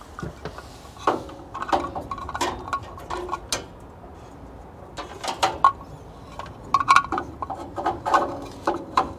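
PVC conduit fittings and an outlet box clicking and knocking as they are handled and test-fitted together by hand: a string of irregular light clicks.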